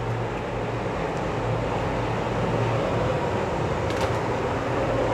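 Steady rushing noise of a large aluminium degh of chicken and masala cooking hard on a stove, with a low hum under it. One short click comes about four seconds in.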